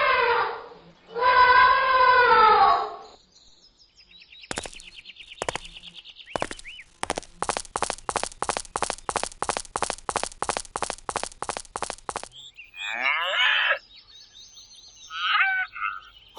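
An elephant trumpeting, two long calls in the first three seconds. These are followed by a steady run of sharp chirps, about three a second, and a few short warbling animal calls near the end.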